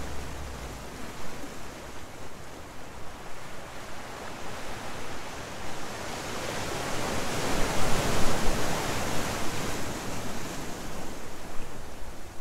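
Ocean surf breaking and washing over a rocky shoreline, a steady rush of white water that swells loudest as a wave comes in about eight seconds in.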